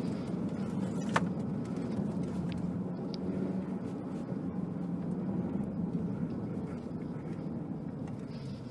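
Cabin noise of a MINI Cooper S 5-door driving at low speed: a steady low hum from the 2.0-litre turbocharged four-cylinder engine and the road, with a single sharp click about a second in.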